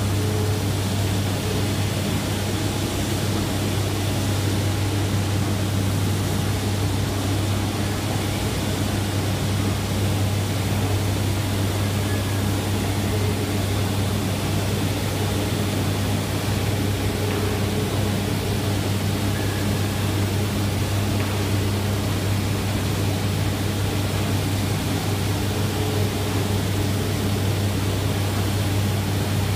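Industrial sanding machine running steadily on glulam timber: a constant low hum over an even hiss.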